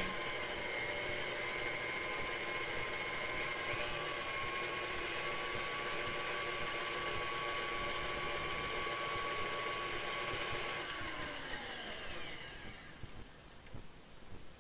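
Electric stand mixer running at low speed, its wire whisk beating cream and sugar in a stainless steel bowl: a steady motor whine that rises slightly about four seconds in. Near the end the whine falls in pitch and fades as the mixer is switched off and winds down.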